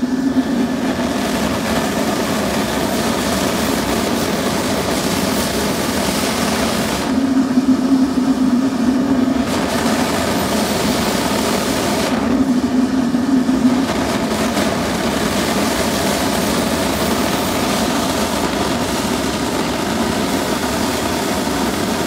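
Blower-powered furnace burner running at full fire: a steady, loud rushing noise. A lower hum swells twice, about seven and twelve seconds in, while the hiss thins.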